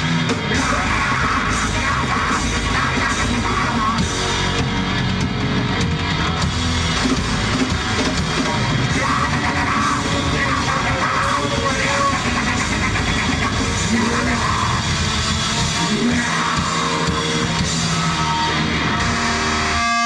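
Live heavy metal band playing loud, with distorted guitar, drum kit and yelled vocals.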